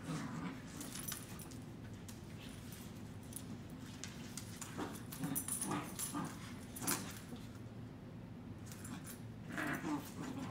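Two dogs, one a three-month-old Corgi puppy, play-fighting: short growls and whines come at intervals, the loudest about five, seven and ten seconds in, over scuffling and clicks as they wrestle on a laminate floor.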